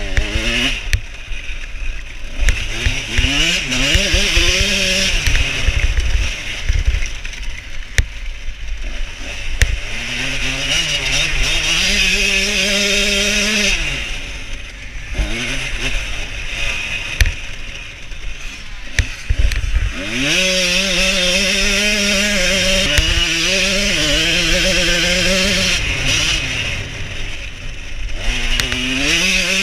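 Single-cylinder two-stroke engine of a 1989 Yamaha YZ125 enduro bike, heard from on board, revving hard. Its pitch rises again and again as it accelerates and shifts up through the gears, holds high, and drops off briefly before pulling again. Scattered thumps are heard throughout.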